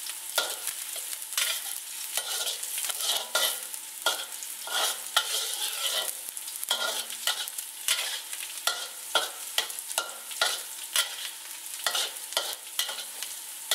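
Chopped garlic sizzling in hot vegetable oil in a wok, stirred with a metal spatula that scrapes and clicks against the wok many times over. The garlic is being fried until slightly golden.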